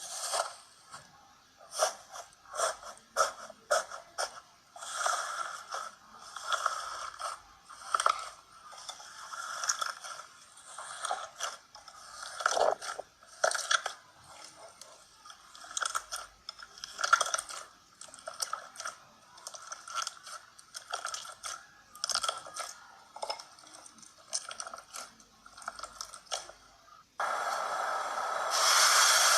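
Slime being squeezed and pressed by hand, making a run of irregular crackling and crunching sounds. About 27 seconds in, it changes abruptly to a louder, denser, continuous crackle.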